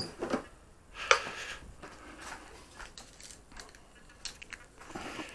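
Handling noises from carrying the RC boat and setting it down on its stand: a string of light knocks and clatters, the loudest about a second in.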